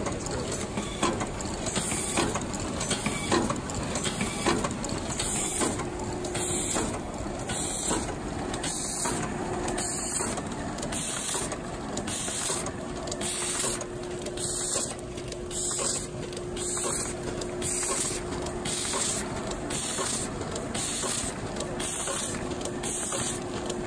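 Sheet-fed die cutting and carton converting machine running, with short sharp hisses of compressed air repeating a little more than once a second over a steady mechanical clatter and, from about six seconds in, a steady hum.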